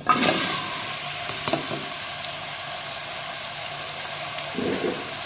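Arbi (taro root) sticks tipped into medium-hot cooking oil in a pan: a loud burst of sizzling as they land, settling into a steady frying sizzle.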